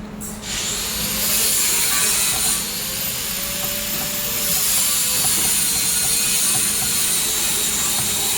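Handheld laser welder firing a test weld: a steady, loud hiss from the weld and the shielding gas starts about half a second in, with a faint high whine.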